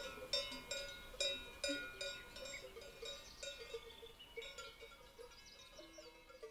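Metal cowbells clanking at an irregular pace, each clank ringing on briefly, growing fainter and sparser toward the end.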